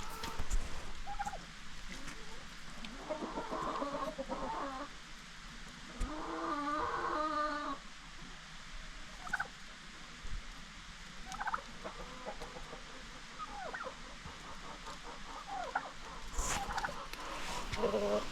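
Farmyard chickens and turkeys clucking and calling, with two louder calls about three and six seconds in, the second drawn out for over a second.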